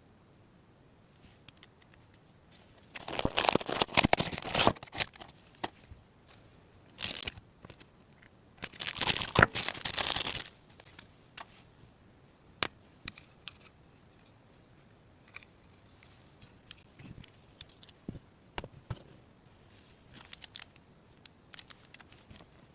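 Crinkling and tearing of handled material, in two loud bursts a few seconds apart, followed by scattered light clicks and taps as small pieces are handled.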